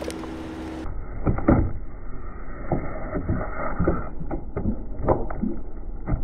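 A plastic bottle of thick orange liquid crackling and popping as it is crushed under a car tyre, in a string of irregular sharp cracks.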